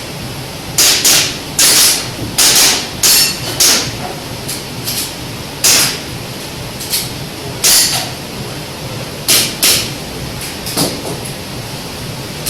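Airsoft pistol shots fired rapidly in quick pairs and singles during an IPSC practical shooting run, about sixteen sharp cracks in all.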